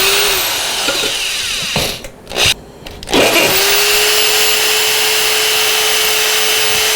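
Electric drill boring mounting holes, with wood splinters coming off. The motor stops briefly about two seconds in, then spins back up and runs at a steady speed.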